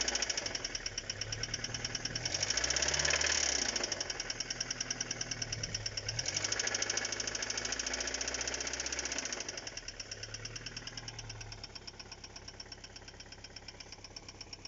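Car engine running with a fast, even knock, a sign of an internal engine fault. It is revved up twice and then drops back toward idle, the knock going on throughout.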